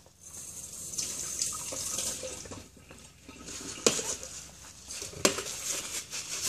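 Tap water running over a stainless steel workpiece as it is rinsed clean of neutraliser, in two stretches, with two sharp knocks in the second half.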